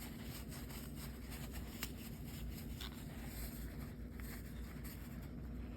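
Paper towel dampened with rubbing alcohol wiping the outside of a Puffco Proxy chamber: faint, irregular rubbing and scratching strokes over a low steady hum.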